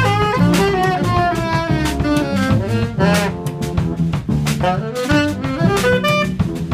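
Live jazz combo: a saxophone plays a fast solo of quick note runs over a drum kit keeping time on the cymbals, with a bass line underneath.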